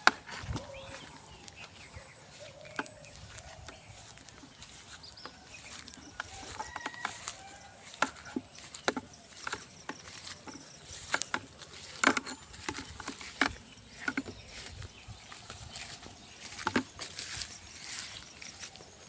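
Outdoor rural ambience: a steady high-pitched hiss or buzz throughout, with scattered short clicks and knocks.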